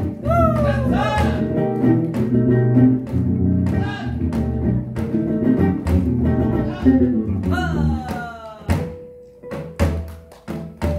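Live band music: electric bass and guitar playing in a jazz style with strikes on a janggu (Korean hourglass drum). About eight and a half seconds in the playing thins out to a few drum hits and held guitar notes.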